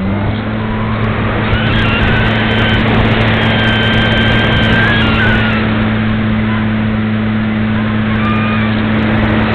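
Parkzone Radian Pro's electric motor and propeller running in flight, a steady hum that steps up in pitch right at the start as the throttle is opened, over wind rushing across the wing-mounted camera's microphone.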